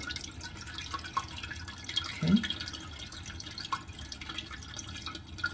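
The last water in a toilet tank trickling and dripping down through the flush valve into the bowl as the tank is drained. There is a brief rising tone a little over two seconds in.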